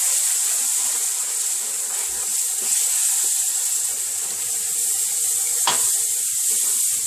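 Butter-and-flour roux sizzling steadily in a hot frying pan as milk is poured in slowly and stirred with a wooden spoon, the first stage of a béchamel sauce. A single short knock near the end.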